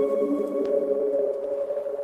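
Soft background music: a held chord of low tones fading slowly.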